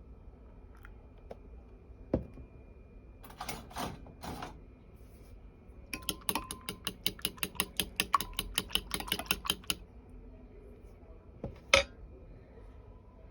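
Kitchen handling sounds: a knock, a few short scrapes, then a rapid, even run of clicks at about eight a second for nearly four seconds, and one sharp click near the end, over a faint steady hum.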